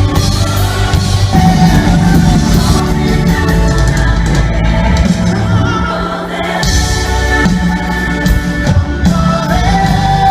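Amplified live band music with singing over drums and bass. The drums and bass drop out briefly a little past halfway, then come back in.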